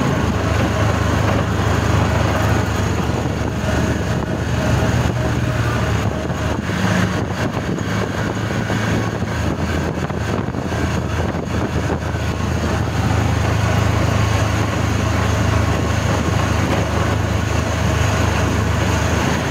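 Engine and road noise from inside the cab of a moving vehicle: a steady low hum under a constant rush of noise.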